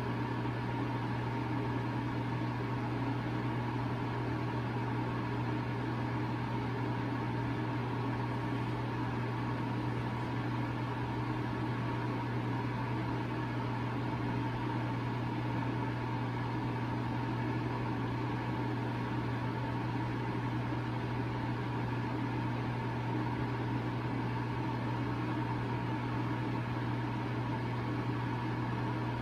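Steady machine hum with an even hiss, unchanging throughout.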